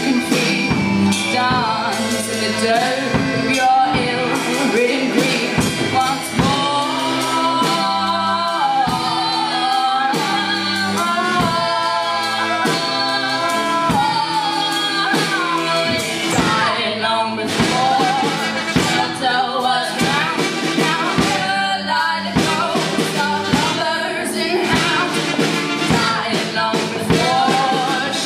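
Live band music with a woman singing lead into a microphone over a steady beat.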